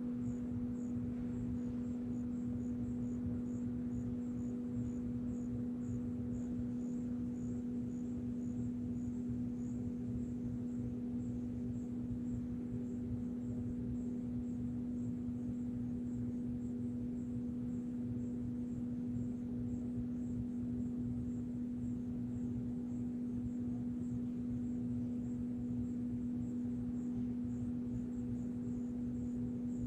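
A steady, unchanging low hum with a faint high pulsing above it.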